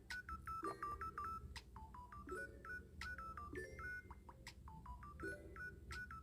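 Quiet background music: a melody of short, bright, beep-like electronic notes over a low steady bass.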